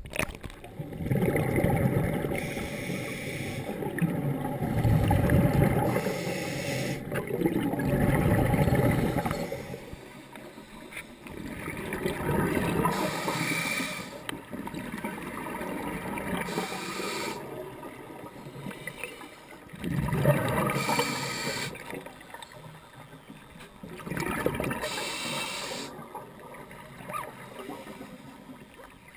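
A scuba diver breathing through a regulator underwater: the hiss of each inhale alternates with a gurgling rush of exhaled bubbles, in slow breaths about every four seconds.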